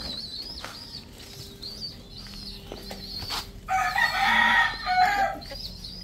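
A rooster crows once, about two-thirds of the way in, the loudest sound. A high, thin chirp repeats over and over throughout.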